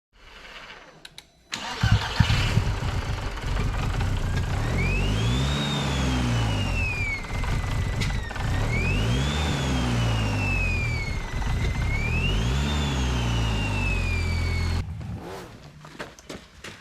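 Car engine starting, then revved three times, each rev rising and falling in pitch with a high whine that follows it. It cuts off abruptly near the end.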